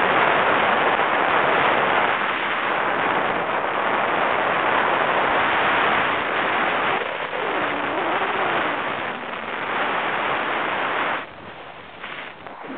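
Freefall wind buffeting a skydiver's camera microphone in a loud, steady rush, dropping sharply about eleven seconds in.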